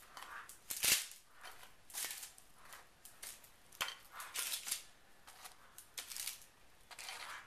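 Crisp baked puff pastry twists crackling as they are lifted off parchment paper and set down on a metal serving platter. A series of short crisp crunches and light taps, the sharpest about a second in.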